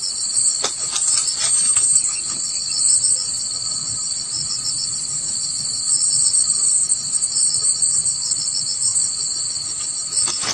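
A chorus of insects chirping steadily and continuously at a high pitch, with an even, pulsing texture. A few faint clicks come in the first couple of seconds.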